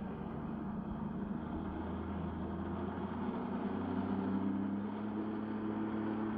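Personal watercraft engine powering a flyboard runs steadily, its pitch and level edging up from about halfway through as it drives water up the hose to the board.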